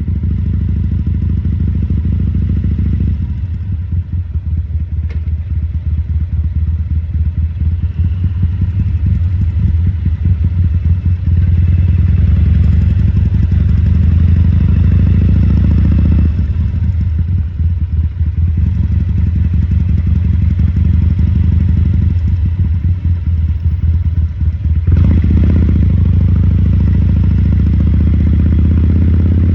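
2014 Harley-Davidson Sportster 1200 Custom's air-cooled V-twin running at low parking-lot speeds. Its note drops back a few seconds in, builds again, eases off, then picks up sharply near the end as the throttle is opened.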